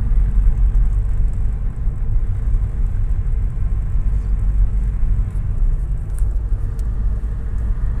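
Nissan Versa heard from inside the cabin while driving slowly at about 30 km/h: a steady low rumble of four-cylinder engine and road noise.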